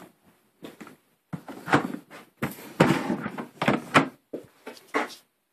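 Large cardboard product box being handled and turned over on a tabletop: a run of scraping, rubbing and knocking sounds that stops shortly before the end.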